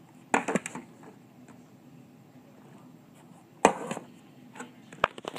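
Small objects being handled and set down in a toy house: a few sharp knocks and clatters, a cluster soon after the start, the loudest a little past the middle, and a couple more near the end.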